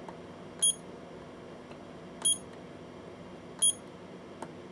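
Cheap battery spot welder beeping three times, short high pitched beeps about a second and a half apart, as it is used to weld onto 18650 lithium cells.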